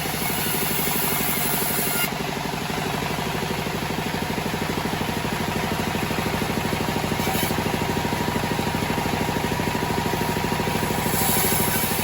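Homemade bandsaw sawmill running, its engine going with a fast, even pulse. A brighter hiss comes in during the first two seconds and again near the end.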